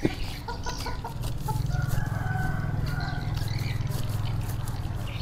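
Chickens clucking in short calls, with one longer call near the middle. A steady low drone sets in about a second and a half in and stays under them.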